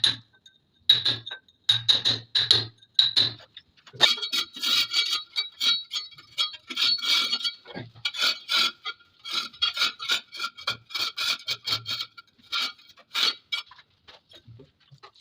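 A metal hand tool tapping and scraping at ceramic wall tile, with a ringing clink on each stroke. Quick, evenly spaced taps give way about four seconds in to a dense run of scraping and chipping that thins out near the end.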